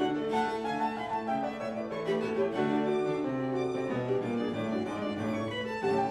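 Live classical music: a violin playing held and moving notes over piano accompaniment.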